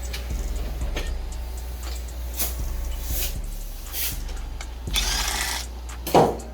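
Power tool run in short bursts, four brief ones and then a longer one, as fasteners come off a Yamaha R1 during teardown, with a single loud clunk near the end.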